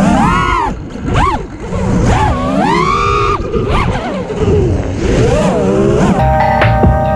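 Brushless motors of an FPV freestyle quadcopter whining, the pitch swooping up and down again and again as the throttle is punched and chopped. Music comes back in near the end.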